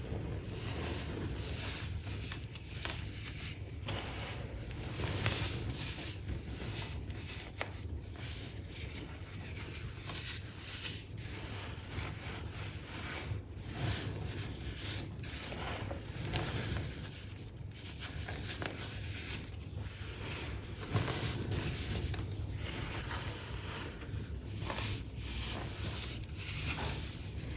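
Fingers pressing, squeezing and crumbling loose baking soda powder, making a continuous irregular crunching and scraping made of many small crackles.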